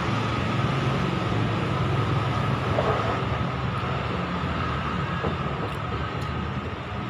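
Steady rumble of road traffic, vehicle engines running close by.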